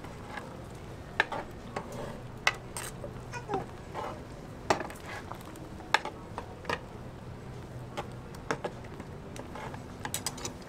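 Metal ladles and a slotted spatula clinking and scraping against a steel pan of simmering tteokbokki as it is stirred: irregular sharp clinks over a steady low hum.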